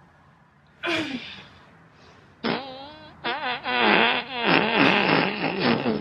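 Comic fart sound effects. A short fart with a falling pitch comes about a second in. A long, wobbling fart starts about two and a half seconds in, breaks into several pulses and cuts off at the end.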